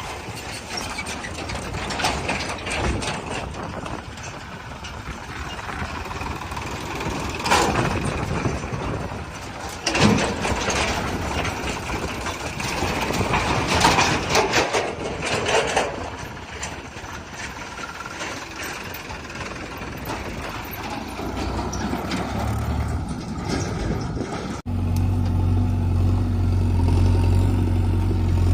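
Diesel engines of a backhoe loader and tractor running, with several loud clanks and rattles in the first half as the loader works. About 25 s in, the sound switches abruptly to a steady, close engine hum.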